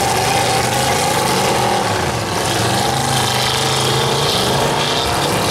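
Demolition derby car engines running in the arena, their pitch wandering a little as the drivers work the throttle.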